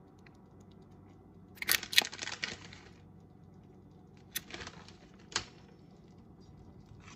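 Faint, scattered light clicks and rattles as grated Parmesan cheese is added to a bowl from its container: a quick cluster about two seconds in, then a few single taps.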